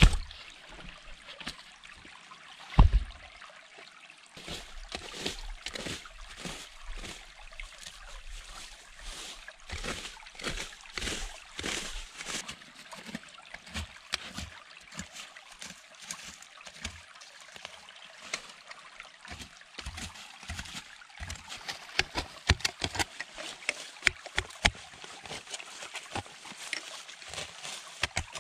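A heavy stone set down on stone with two dull thumps, then a hand tool digging and scraping into leaf-covered soil, leaves and roots in repeated strokes, about one or two a second. Near the end the strokes come quicker and sharper, the blade chopping into the earth.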